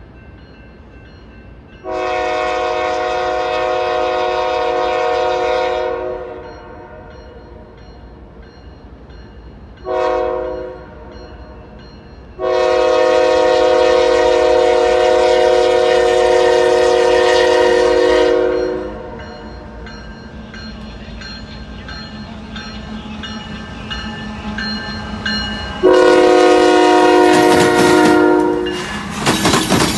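CSX diesel freight locomotive's multi-chime air horn sounding the grade-crossing signal: two long blasts, one short, then a final long blast. Near the end the locomotive passes close by, its engine and wheels loud and rushing.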